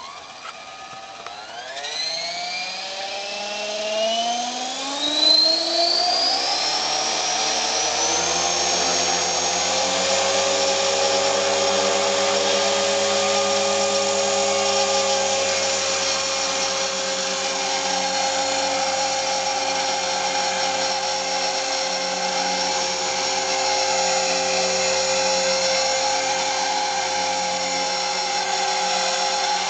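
KDS 450 electric RC helicopter spooling up: the motor and gear whine rises steadily in pitch over the first ten seconds or so, then holds a steady high whine with rotor buzz at flying speed.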